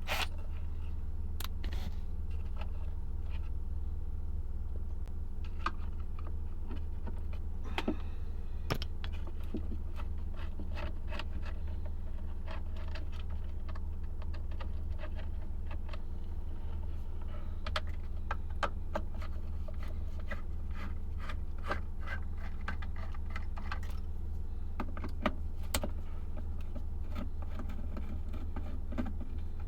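Scattered small clicks and light metallic clinks of tools and parts being handled at a workbench, over a steady low hum.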